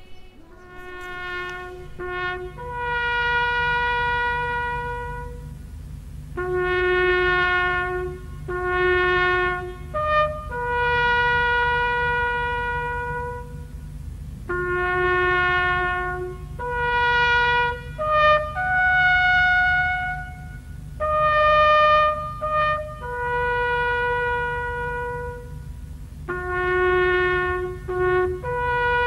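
Bugle sounding the slow moment-of-silence call: a series of long held notes moving up and down among a few natural bugle pitches, with short breaks between them, over a low steady hum.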